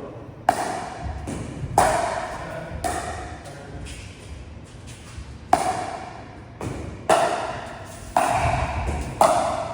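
Pickleball paddles striking a plastic pickleball in a rally drill: a series of sharp pops, about eight at uneven gaps of roughly a second, each with a brief ring.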